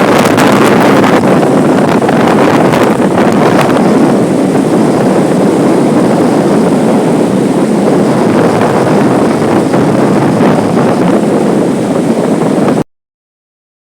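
Strong storm wind blowing over the microphone, a loud steady rush that cuts off abruptly near the end.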